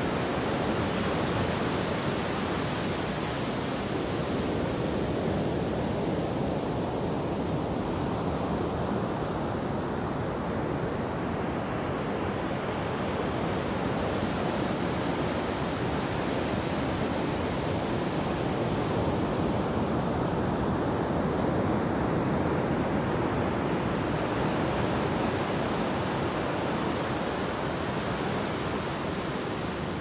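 Ocean surf breaking and foamy swash washing up a sandy beach, a steady rushing noise. The higher hiss thins over the first ten seconds or so and swells back through the second half as more foam runs up the sand.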